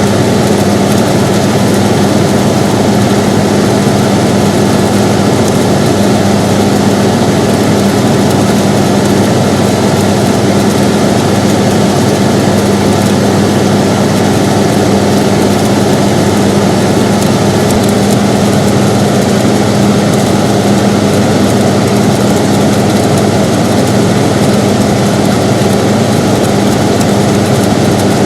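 Air conditioner running steadily: a constant rush of air with a low, even hum.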